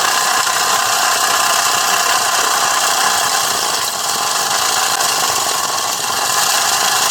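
Small battery-powered electric motor of a homemade rice-washing machine, running steadily.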